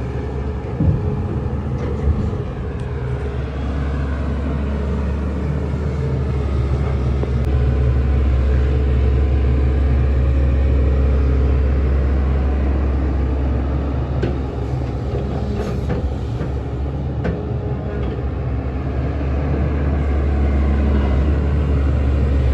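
Heavy diesel engine of a working excavator running with a steady low drone, swelling a little in the second half, with a few short knocks.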